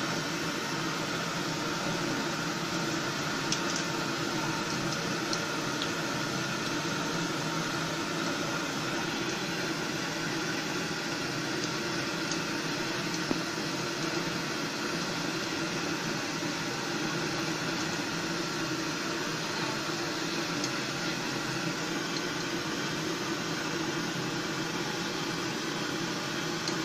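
Batter-coated cauliflower fritters deep-frying in hot oil, a steady sizzle. The fritters are fully cooked and ready to lift out.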